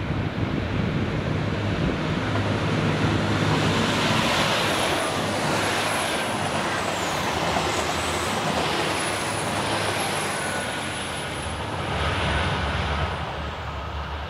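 Chizu Express HOT7000 series diesel railcar passing close at speed: a loud, steady rush of wheels on the rails over the low drone of its diesel engines.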